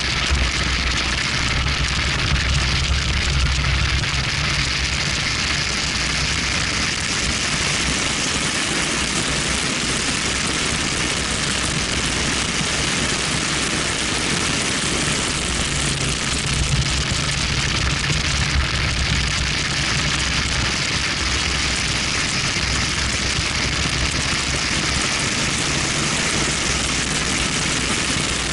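A BMW 1M at track speed, heard from a camera mounted outside on its front left fender: steady wind rush over the microphone and tyre and road roar, with the car's twin-turbo inline-six running underneath. The low rumble swells twice, near the start and about halfway through.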